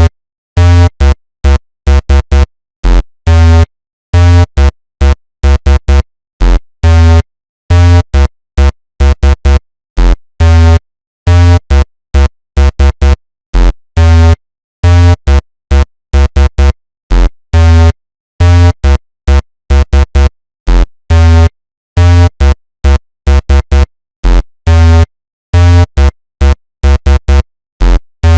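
Synthesized sci-fi alien abduction sound effect: a loud, low electronic buzz chopped on and off in rapid, irregular pulses, some short blips and some longer, with dead silence between them.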